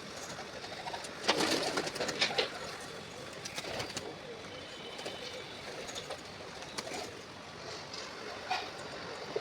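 Pigeons cooing, with a couple of louder rustling bursts about one and a half to two and a half seconds in.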